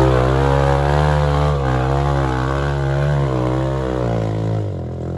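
Motorcycle engine running while riding, its pitch wavering up and down, then dipping near the end.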